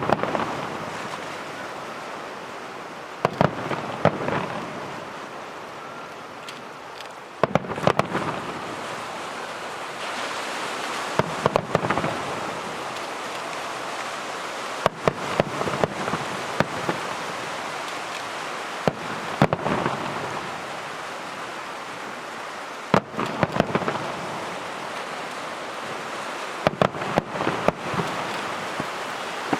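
Aerial firework shells bursting overhead in clusters of sharp bangs every few seconds, over a continuous crackling hiss.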